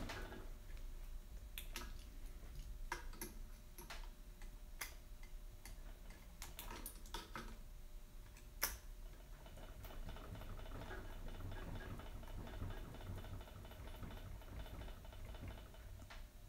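Irregular small metal clicks and ticks as locking pliers work a tight-fitting AR-15 gas tube alignment tool back and forth to wiggle it free, with one sharper click a little past the halfway point.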